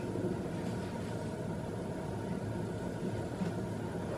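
Steady low hum and hiss of room noise, with a faint steady tone above it and no distinct events.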